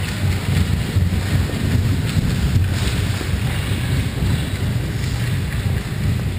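Steady low rumbling noise on the microphone of a goal-mounted camera at an ice hockey game, with faint scrapes and clacks of skates and sticks on the ice.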